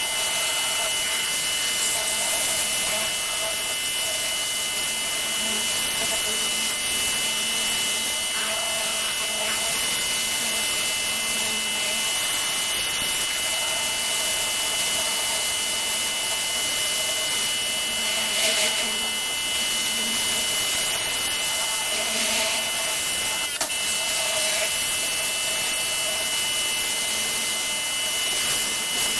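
Pressure washer running steadily: its motor and pump hum under a continuous loud hiss of the high-pressure water spray.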